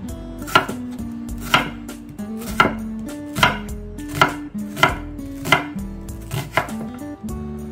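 Chef's knife slicing an onion into strips on an end-grain wooden cutting board: about eight slow cuts, roughly one a second, each ending in a knock of the blade on the wood.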